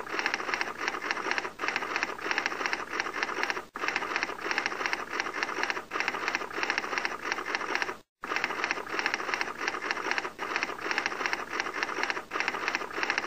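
Rapid typewriter-like clacking sound effect, in runs of about two seconds broken by short pauses.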